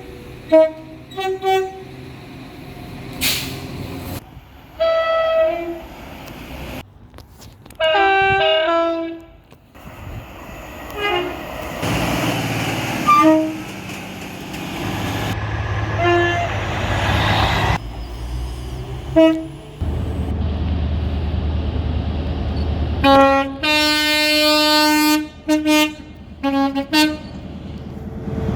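A series of train horn blasts from several different trains, cut one after another: quick short toots at first, then longer multi-note horn chords. Near the end comes the longest and loudest chord, sounded in a few pulses. A low rumble of engines and rails runs under the horns.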